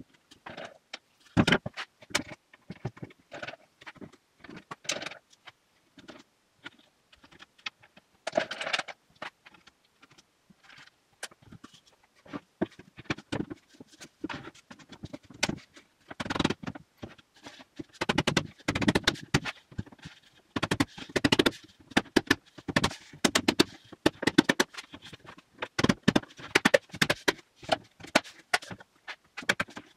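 Spruce shelf boards being handled and shifted on a workbench: irregular wooden knocks, clatters and scrapes, busier and louder in the second half.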